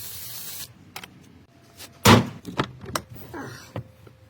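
Aerosol cleaner spray hissing, cut off sharply about half a second in; about two seconds in, a single loud slam, like a car door shutting, followed by a few lighter knocks and clicks.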